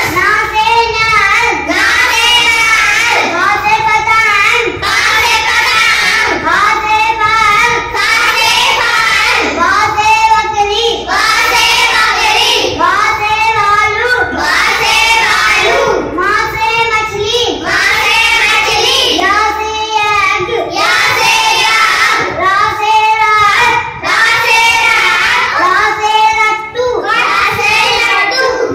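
A child's voice chanting the Hindi alphabet in a sing-song, one letter-and-word pair after another, about one phrase a second.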